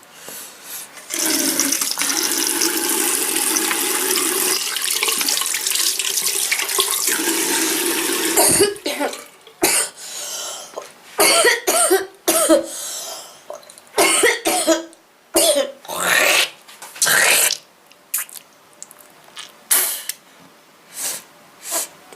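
A steady rushing noise for about seven seconds, then a run of short, separate coughs and throat sounds from a girl with a bad cold, about fifteen in all, some close together in pairs.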